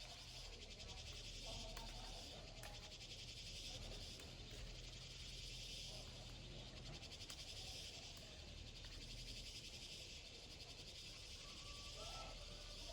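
Faint, steady chirring of insects with a few faint short calls.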